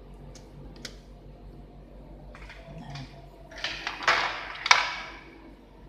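A few light clicks, then a rustling scrape lasting over a second with a sharp clack near its end: objects being handled and set down on a workbench during a laptop repair.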